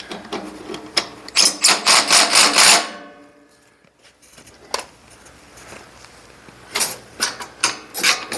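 Power ratchet running in short bursts on a bolt, a fast clicking rattle, stopping for a moment midway and starting again near the end. The later bursts turn it the wrong way, in reverse.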